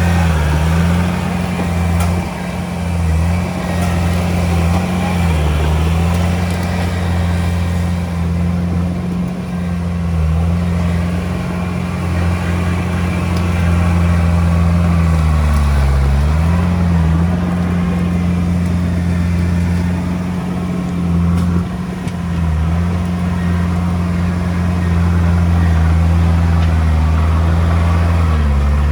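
A Komatsu D31P bulldozer's diesel engine running hard and steadily. Its note dips briefly a few times as the machine works.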